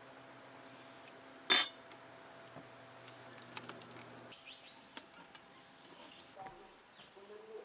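Dishes and utensils clinking: one sharp, loud clink with a short ring about a second and a half in, then scattered small clicks and taps.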